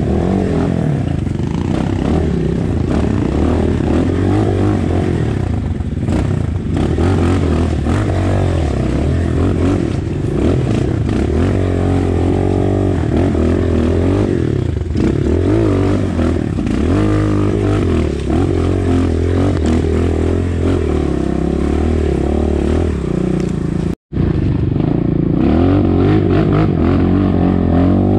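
Off-road dirt bike engine running with revs rising and falling as it rides. The sound cuts out for an instant about 24 seconds in, then picks up again.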